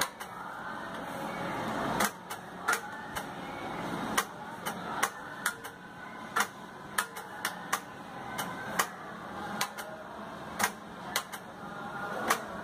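Irregular sharp clicks, one or two a second, over a faint steady low hum.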